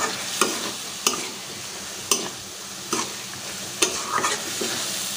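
Meat and spice paste sizzling in a metal pan while being stirred and fried down, with a metal spoon knocking and scraping against the pan about once a second.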